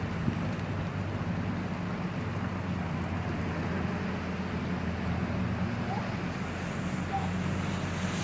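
Hailstorm falling steadily: a dense, even noise of hailstones coming down, with a low steady hum underneath.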